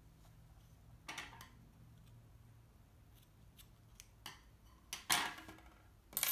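Scissors snipping off yarn ends: several short cuts, the loudest about five seconds in and another just before the end.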